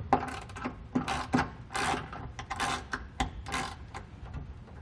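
Socket ratchet with an 11 mm deep-well socket clicking in short back-strokes, about five in a row, as a nut is run up and tightened on a bolt.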